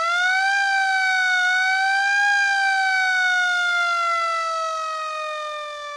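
A siren wailing: the pitch finishes climbing in the first half-second, holds with a slight waver for about two seconds, then slowly falls and fades.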